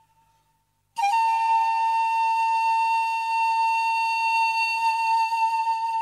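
Background music: after a near-silent first second, a single long note comes in suddenly and is held steady.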